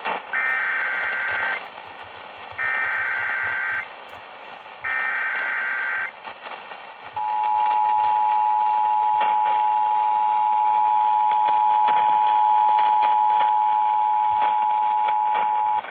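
Emergency Alert System activation heard over a radio broadcast: three buzzy digital data bursts of about a second each (the SAME header), then, about seven seconds in, the steady two-tone EAS attention signal held for about eight seconds. Steady radio hiss runs underneath.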